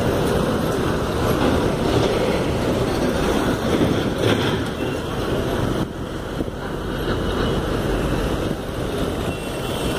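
Steady road traffic noise: engines and tyres of cars and trucks moving along a busy highway.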